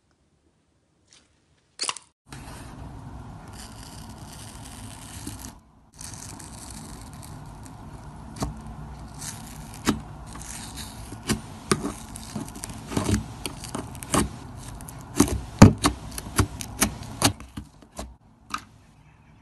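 Slime being squished and poked, with a steady crackling hiss. From about eight seconds in there are many sharp pops and clicks.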